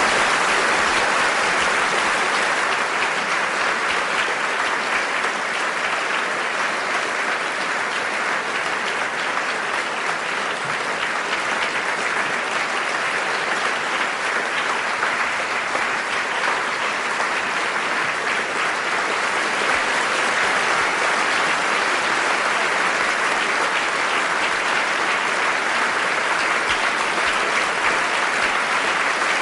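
A large audience applauding steadily, a dense even clapping with no breaks or swells.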